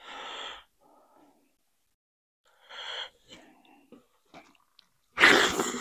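Close-up eating sounds from a person eating mullet: two short breathy bursts with small wet mouth clicks between them, then a much louder noisy burst about five seconds in.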